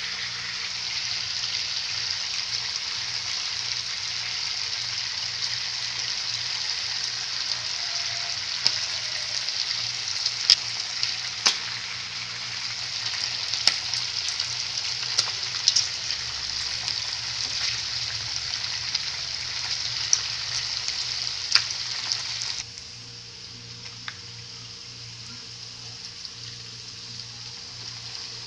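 Pork and garlic frying in a wok, a steady sizzle with occasional sharp clicks of a utensil against the pan. About 23 seconds in, the sizzle drops to a quieter level.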